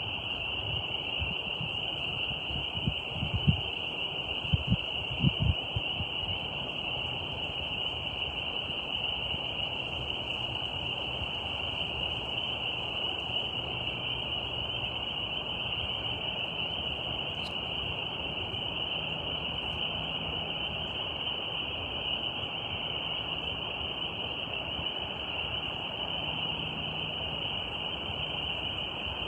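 Steady high-pitched insect chorus, one unbroken buzzing drone, over a soft background hiss. Several low thumps come in the first few seconds.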